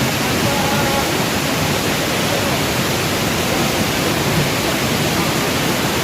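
Waterfall: a steady, loud rush of falling water, with faint voices under it.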